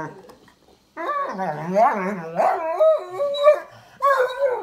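Dog giving long, wavering howl-like play vocalizations while wrestling with another dog. There is one stretch of over two seconds starting about a second in, then a shorter one near the end.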